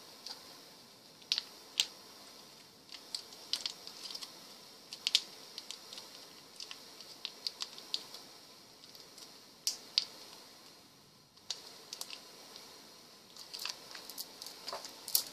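Irregular light clicks and taps of a metal spoon scooping thick sauce out of a container, over a faint steady hiss.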